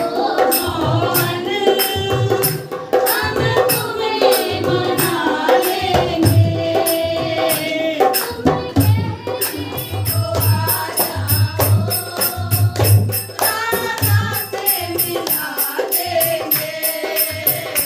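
A group of women singing a Hindi devotional bhajan together in unison, over a dholak drum and hand percussion keeping a steady beat.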